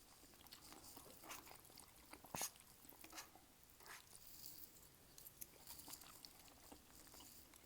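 Faint chewing and soft mouth clicks of people eating, with one sharper click about two and a half seconds in.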